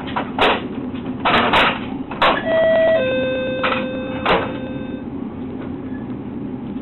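Knocks and clatter from handling at a shop counter and cash register over a steady background hum; about two and a half seconds in, an electronic two-note tone sounds, a short higher note followed by a lower one held for about two seconds.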